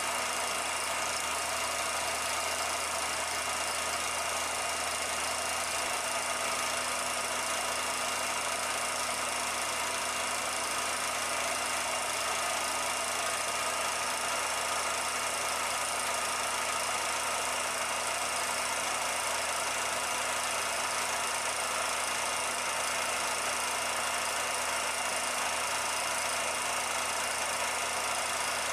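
A steady mechanical running noise: an even hiss with a few fixed hum tones, unchanging throughout.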